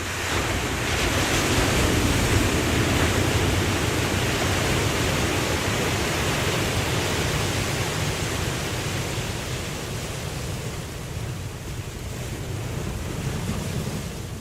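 Ocean waves breaking and washing up as a rushing hiss, swelling loud about a second in and slowly fading, with a smaller wave near the end.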